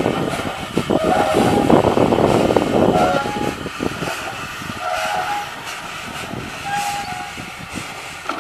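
Bucyrus-Erie 50-B steam shovel working: a loud hiss and clatter from its steam engine and machinery for the first three seconds, then easing off as the dipper swings. Short high-pitched squeals or toots come about four times.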